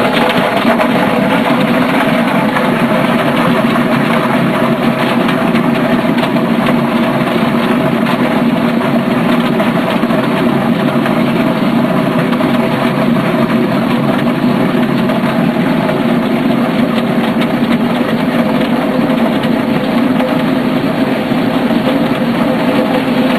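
Electric potato peeling machine running steadily: a constant motor hum with potatoes rattling against the spinning abrasive drum as water sprays in to rinse off the peel.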